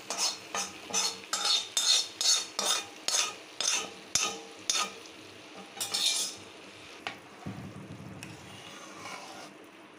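Metal spoon stirring and scraping through a pot of akkara vadisal, about three strokes a second, with hot ghee and fried cashews sizzling in it. The stirring stops about six seconds in, leaving a quieter sizzle.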